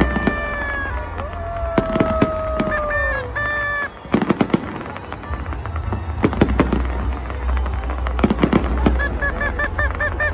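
A fireworks display, with bangs and rapid crackling over a continuous low rumble. Horns honk over it: long held notes that sag slightly in pitch during the first few seconds, then a quick run of short toots near the end.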